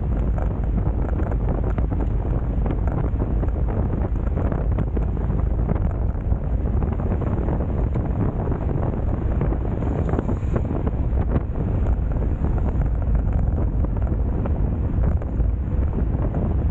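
Wind rushing over the camera microphone of a road bike moving at speed: a steady, loud buffeting noise, heaviest in the lows.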